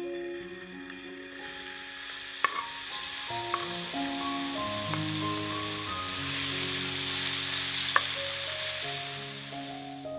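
Shredded beefsteak fungus (Fistulina hepatica) sizzling in hot oil in a nonstick frying pan. The sizzle swells about a second in as the strips go in and then holds steady. A few sharp knocks of the wooden spatula against the pan come while it is stirred.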